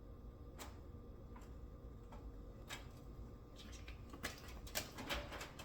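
Thin disposable aluminum pan with oil heating on a small burner: a few scattered ticks, then from about three and a half seconds in a faint, busy crackling hiss as the pan and oil heat up.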